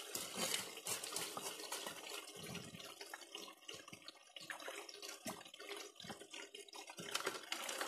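Water rushing through a 6-inch highbanker's spray bar and sluice, with scattered scrapes and clatters of a shovel and gravel being fed into the hopper.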